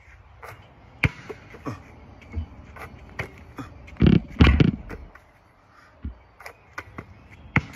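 Basketball bouncing on an outdoor asphalt court, a string of irregular sharp thumps, with a louder, longer rumbling burst just after four seconds in.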